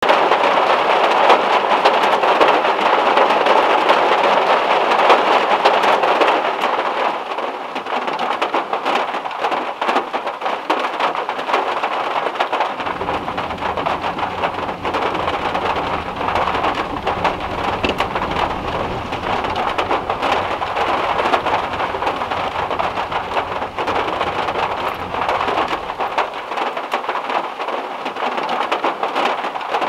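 Heavy rain hitting a car's metal roof: a dense hiss of countless drop hits, heaviest over the first several seconds. From a little before halfway, a long low rumble of thunder rolls under the rain for about thirteen seconds and then dies away.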